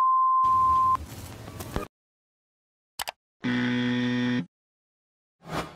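Outro sound effects: a steady high test-tone beep that cuts off about a second in, followed by a hiss of TV static. After a pause come a short click and a flat buzzer tone about a second long, then a brief burst of noise near the end.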